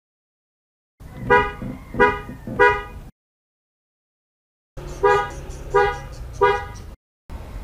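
Car horns compared: three short honks, a silent gap of about a second and a half, then three short honks from the other horn. The two horns are a Bosch Europa and a Denso horn.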